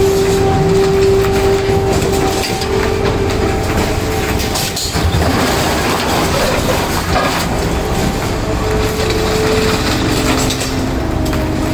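Material handler with an orange-peel grapple loading scrap metal into a steel dump trailer: continuous crunching, clattering and scraping of scrap metal, with long squealing tones now and then over the running machine.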